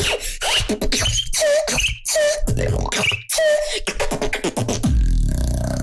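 A 12-year-old boy beatboxing into a studio microphone: a rapid rhythmic run of vocal drum sounds and deep bass, ending in a long, low bass note held over the last second.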